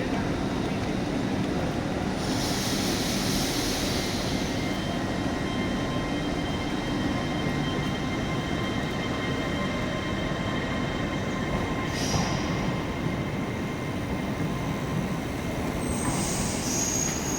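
Passenger train pulling out of the platform: a steady low rumble with thin, high wheel squeals. There is a burst of hiss about two seconds in, a single click near the middle, and more squealing near the end.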